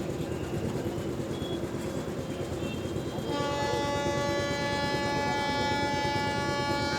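Train rumbling on the rails, then about halfway through its horn starts and is held steady as one long chord of several tones, louder than the rumble.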